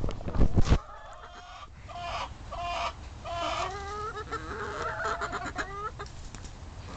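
A flock of domestic hens clucking as they crowd in for treats, a run of short pitched clucks and calls from about two seconds in. A few loud knocks near the start.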